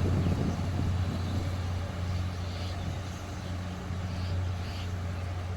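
Diesel locomotive of a passenger train running with a steady low hum, the rumble of the moving train easing off in the first second as it pulls into the station. A few faint high squeaks come near the middle and end.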